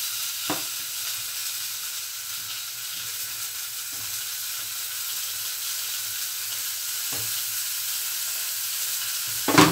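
Steady sizzling hiss of food cooking on the stovetop, with a few short knocks as a silicone spatula stirs a pot of curry; the loudest knock comes just before the end.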